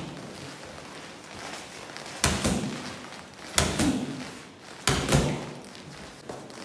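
Boxing gloves smacking into a handheld strike pad: three sharp hits about a second and a half apart, each with a short echo, as punches are drilled on the pad.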